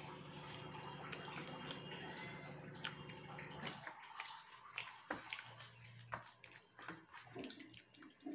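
Eating sounds: fingers working rice and fish head on a steel plate, with small sharp clicks and wet mouth sounds of chewing. A steady low hum underneath cuts off suddenly about four seconds in.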